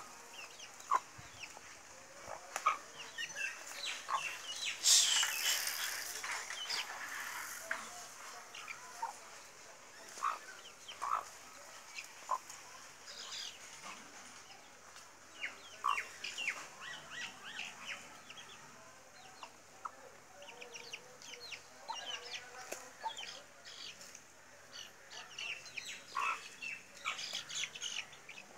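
Chicks peeping in many short, high chirps and a hen clucking now and then, with a louder burst of noise about five seconds in.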